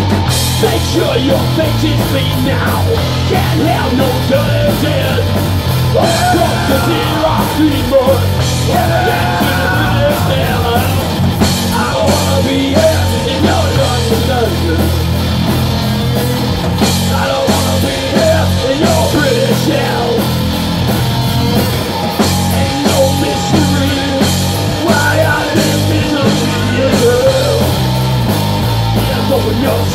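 Live rock band playing a fast, loud punk song: distorted electric guitars over a drum kit, with yelled vocals.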